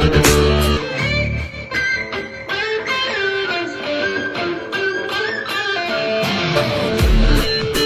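Background music led by electric guitar playing a melody over a steady beat, with heavy bass in the first second and again near the end.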